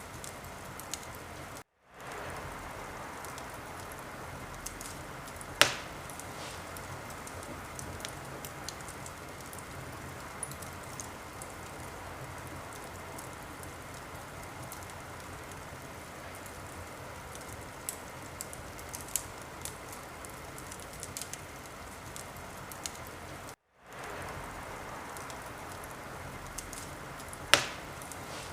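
Wood fire crackling steadily, with scattered small snaps and two loud sharp pops. The sound cuts out to silence for a moment twice, about two seconds in and near the end, like the seam of a looped recording.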